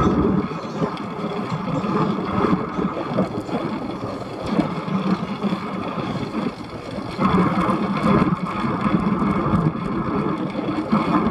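Wind rushing over the microphone of an action camera on a moving bicycle, a rough, continuous noise that swells and eases in gusts, loudest in the second half.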